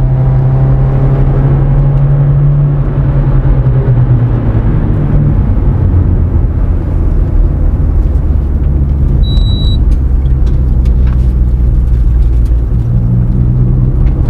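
Honda Civic's D17A VTEC four-cylinder engine running under way, heard from inside the cabin over steady road rumble. Its drone eases off about three seconds in. A short high beep sounds about nine seconds in.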